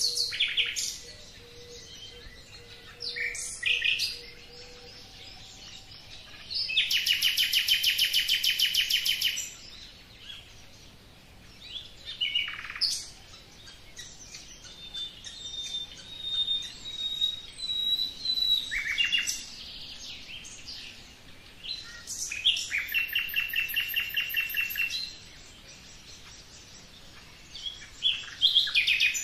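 Small songbirds singing: two long, rapid trills of about two and a half seconds each, one about a quarter of the way in and one near the three-quarter mark, with short high chirps and calls scattered between.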